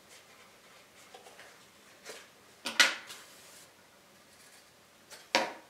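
Quiet room with a few short, crisp rustles of coloured paper and string being handled. The loudest comes a little under three seconds in and another comes near the end.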